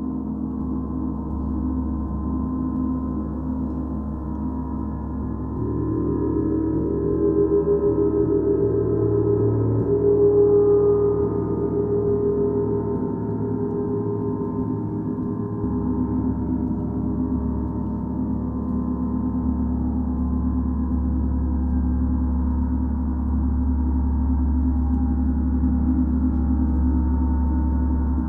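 Large Paiste planetary gong, the Mercury gong, played continuously with a soft mallet: a deep sustained hum under a dense wash of overtones, swelling louder about seven to eleven seconds in and then holding steady.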